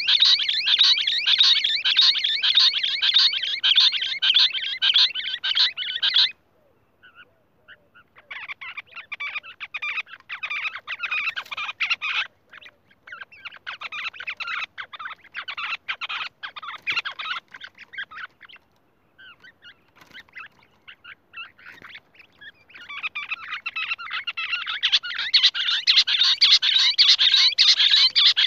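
Lahori quail call: a dense, rapid, high-pitched chattering trill. It cuts off suddenly about six seconds in, comes back in broken patches, then builds to full strength again near the end.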